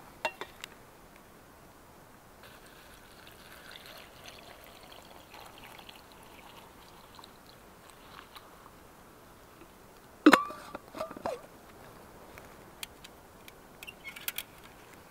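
Water poured from a stainless steel bottle into a steel camp cup of Labrador tea leaves, a soft trickle. About ten seconds in comes a sharp metal clink with brief ringing, a smaller clink a second later and a few light taps near the end.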